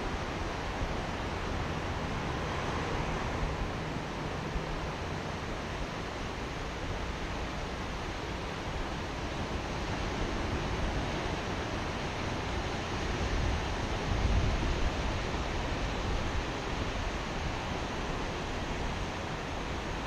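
Atlantic surf breaking along a sandy beach, a steady rushing noise, mixed with wind on the microphone that gusts briefly about two-thirds of the way through.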